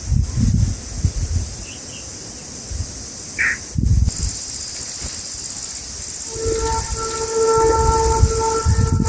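Outdoor ambience of a steady, high insect drone with low wind bumps on the microphone and a single short bird chirp about halfway through. About two-thirds of the way in, a steady multi-note horn starts and holds on.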